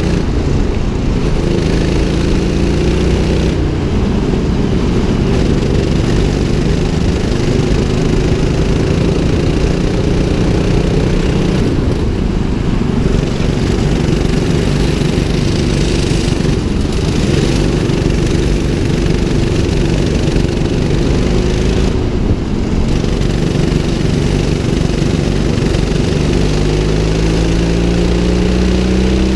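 Rental go-kart's 200cc engine running under load, heard from the driver's seat. Its pitch falls and rises with the throttle, climbing steadily near the end as the kart accelerates.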